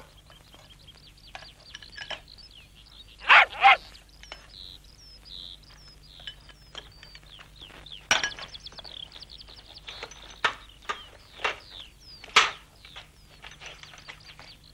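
Small birds chirping and twittering steadily, with a few sharp knocks over them, the loudest two close together about three seconds in.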